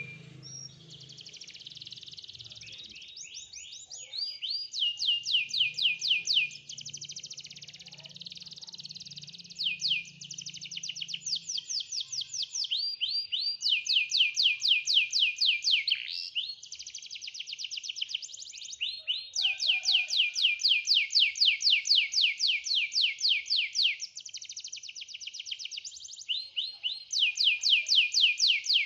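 Domestic canary singing a long, varied song of rapid trills: each phrase is a fast run of repeated, high, downward-sweeping notes, and the bird switches to a new phrase every few seconds.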